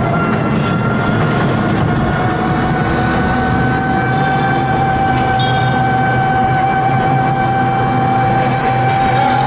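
Deltic electric rickshaw running at full throttle near its top speed of about 47 km/h. Its motor gives a steady whine that climbs slightly in pitch, over road and wind noise.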